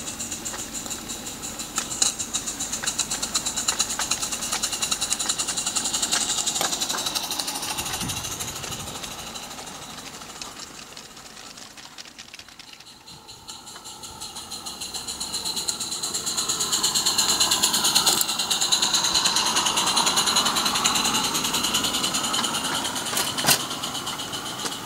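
Live-steam Accucraft Ragleth garden-railway locomotive working hard with a train of loaded mineral wagons: rapid, even exhaust beats and wheels running on the rails, with a few sharp clicks. The sound fades away about halfway through, then grows loud again as the train comes back close.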